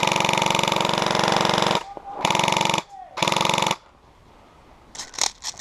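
Airsoft gun firing full auto close by: one long burst, then two short bursts about half a second each. A few sharp clicks near the end.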